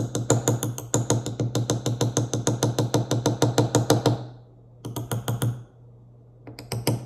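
A small glass hot sauce bottle being shaken hard to dispense the sauce, rattling in a fast even clicking of about eight strokes a second for four seconds, then in two shorter bursts. A low steady hum runs underneath.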